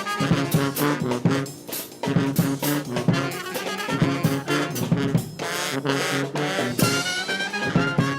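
Brass band playing, with horns over a steady drum beat.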